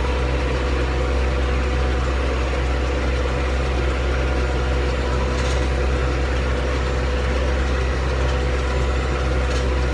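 Valtra 100-horsepower tractor's engine running steadily under load while pulling a Vermeer 504N round baler through hay, in medium range 4th gear at about 5 mph.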